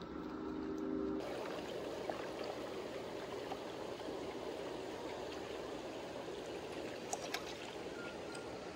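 Hot spring water pouring from a spout into an outdoor bath: a steady rush of running water that sets in suddenly about a second in. A couple of faint sharp ticks come near the end.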